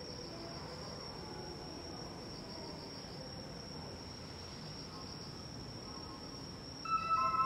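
A steady, high, finely pulsing trill of crickets. Near the end a louder electronic chime of clear sustained tones sets in over it.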